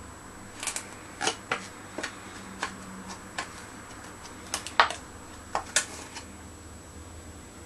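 A run of about a dozen sharp, light clicks at irregular intervals over several seconds, over a faint steady hum.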